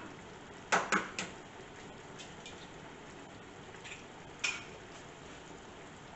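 Sharp clinks of kitchenware, a small glass bowl and dishes knocking together: three quick ones about a second in, a few faint ones, then one more about four and a half seconds in.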